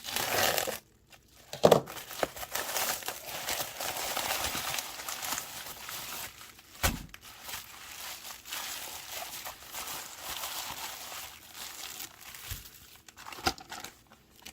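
Packaging crinkling and rustling as it is handled and opened, with a couple of sharp knocks, one about two seconds in and another about seven seconds in.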